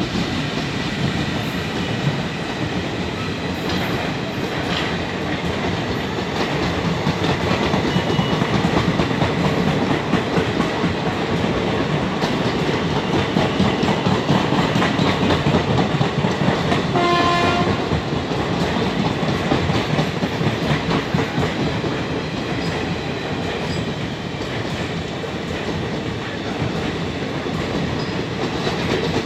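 Train running along the track, wheels clattering steadily over the rails. A short horn blast sounds about seventeen seconds in.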